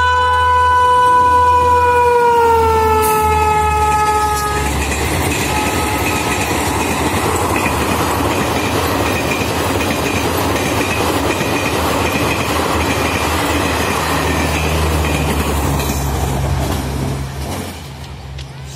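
Superfast express train's electric locomotive sounds a long horn blast that drops in pitch as the locomotive passes at speed, about four seconds in. The coaches then rush past with steady wheel-on-rail noise, which fades near the end.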